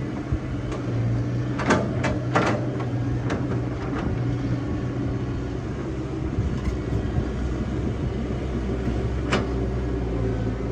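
Excavator's diesel engine running steadily, with several sharp metallic clanks, a cluster about two seconds in and another near the end.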